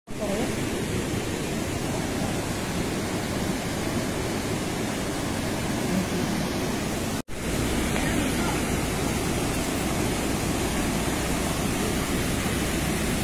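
Rushing floodwater of a swollen, muddy river, a steady noise of fast-moving water. It drops out for an instant about seven seconds in.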